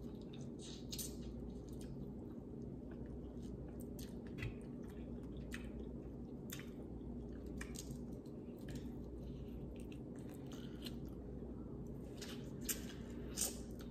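Close-miked eating: chewing and wet squishing of seafood, with scattered small clicks and crackles as crab leg shell is picked apart by hand.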